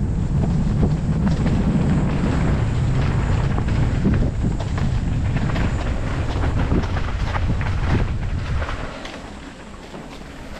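Wind buffeting the microphone in a steady low rumble, easing off near the end.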